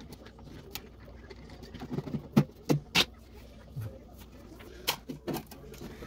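Sharp clicks and knocks of a screwdriver working out screws and a freezer's metal back access panel being pulled off. There are three quick knocks about halfway through and two more near the end, over a low steady hum.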